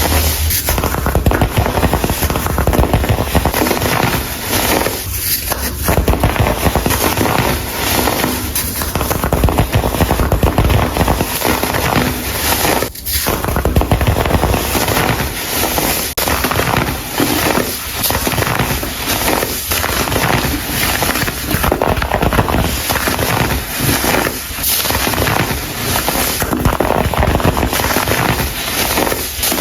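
Chunks of dried, colored baking soda being crumbled and crushed: loud, dense, crisp crunching and crackling, with a brief pause about thirteen seconds in and another around sixteen seconds.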